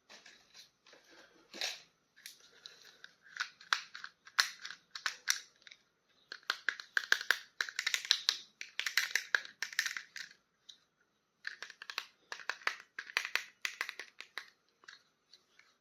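Plastic toy packaging crinkling and crackling as it is handled and opened, in bursts of rapid small clicks with short pauses between them.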